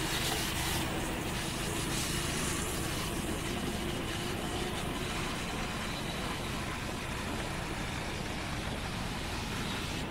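Steady road and traffic noise from a vehicle being driven through traffic: an even rumble and hiss with no distinct events.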